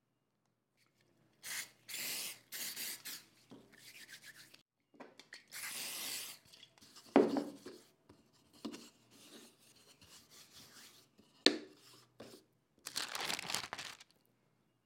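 Hands working with a carved wooden tortoise cake mould and paper on a work mat: a string of short rubbing and rustling noises. There is a solid knock about seven seconds in, as the wooden mould is set down, and a sharper wooden tap about eleven and a half seconds in.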